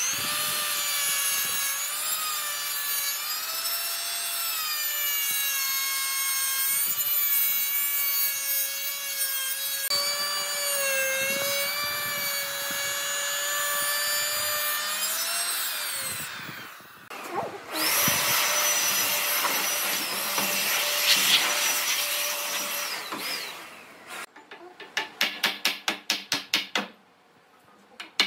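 Electric power tool's motor whining as it cuts wood, its pitch dipping and recovering with the load. It stops about sixteen seconds in and runs again for about five seconds. Near the end comes a quick series of about a dozen strokes, about five a second.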